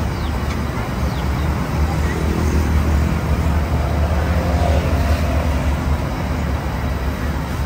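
Steady low rumble of road traffic and vehicle engines, a little louder in the middle.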